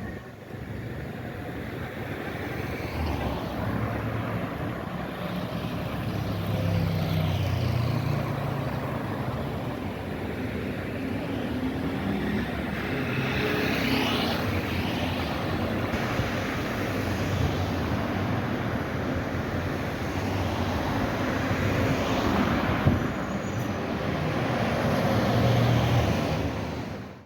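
Road traffic noise, with vehicles passing close by. Two clear pass-bys swell and fade, one about halfway through and one later.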